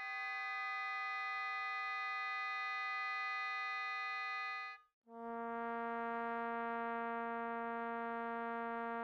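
A long held oboe tone from a multiphonics recording, which cuts off about five seconds in. After a brief gap a trombone long tone about an octave lower starts and holds steadily.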